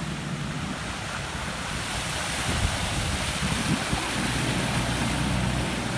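Floodwater rushing, with wind buffeting the microphone; a steady noise that grows a little louder about two seconds in.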